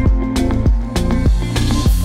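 Background music with a steady beat, about three beats a second, over a bass line.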